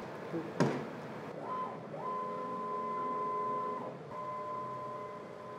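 Avid CNC router's stepper motors whining steadily as the gantry jogs into position. The whine starts about a second and a half in, stops briefly near four seconds and starts again. A single click comes just before it.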